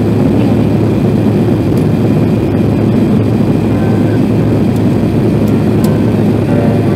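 Steady cabin noise of a Boeing 787-8 under way: the hum of its GE GEnx jet engines and rushing airflow heard through the fuselage beside the wing, even and unchanging, with its weight low down.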